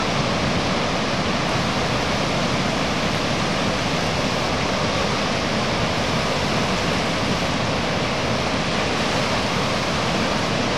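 River in flood after torrential rain, its swollen current rushing steadily through large standing waves and whitewater.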